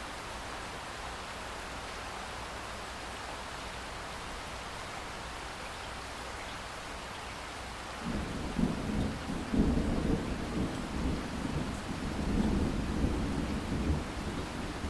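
Steady rain hissing; about halfway through, a low rolling rumble of thunder comes in over it and keeps swelling and fading.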